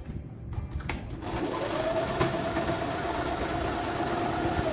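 Domestic electric sewing machine running steadily as it stitches a seam through layered cloth. It starts about a second in with an even hum.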